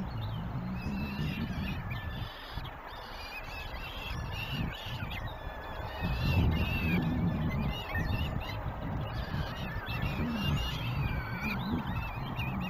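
Downy peregrine falcon chicks giving repeated short, high begging calls while an adult feeds them at the nest, over a steady low rumble.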